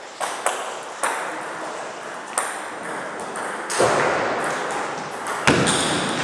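Table tennis rally: the celluloid ball clicking off rubber bats and the table, sharp ticks at an irregular pace that echo in a large hall. Two louder, fuller sounds come about four and five and a half seconds in.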